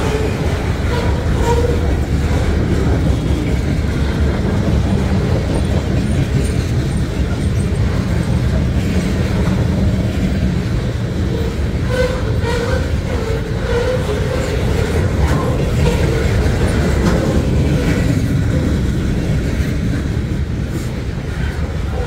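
Freight train cars rolling past close by: a steady rumble of steel wheels on rail with occasional clicks, and faint wavering wheel squeals about halfway through.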